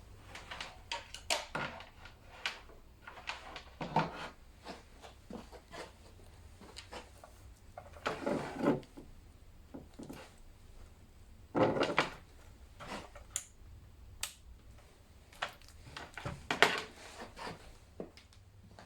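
Scattered clicks, knocks and rattles of hard-drive docking station gear and cables being handled and plugged in. Three longer, louder scraping rattles stand out among them.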